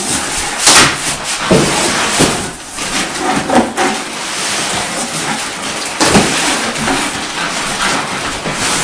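A mattress box being opened and the rolled mattress pulled out: loud, uneven rustling and scraping of cardboard and plastic wrap, with a few sharp knocks.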